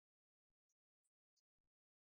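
Near silence, broken only by a few very faint clicks about halfway through.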